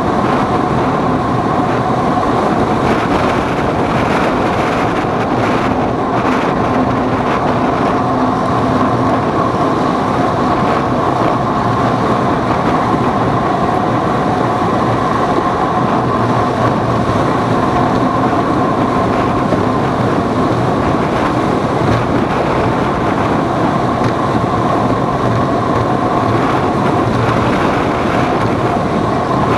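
Vehicle in steady motion: a continuous rumble with a constant whine over it, unbroken throughout.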